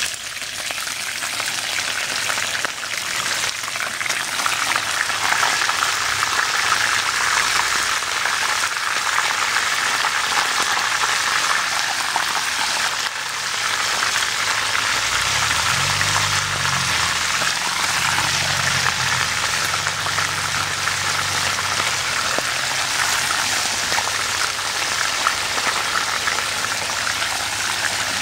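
Small river fish deep-frying in hot oil, a steady sizzle.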